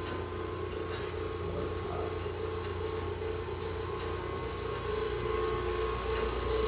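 Steady mechanical hum of boiler-room equipment running, with a low rumble under a few steady tones.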